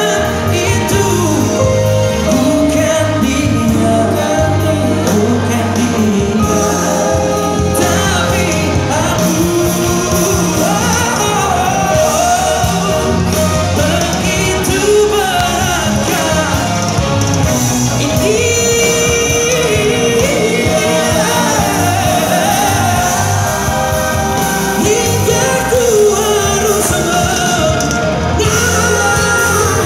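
Live pop-rock band playing a ballad: a male singer over electric guitar, bass guitar and drums, loud and continuous.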